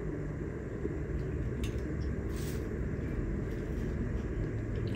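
Steady low background rumble, with a few brief faint rustles and clicks of plastic food bags and a spoon being handled, about a couple of seconds in.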